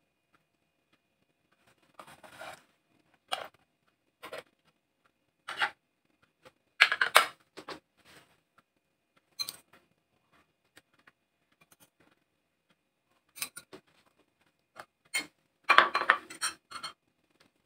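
Metal spoon scraping and clinking against ceramic plates and bowls while food is served, in short separate strokes with quiet gaps between; the loudest clatter comes about seven seconds in and again near the end.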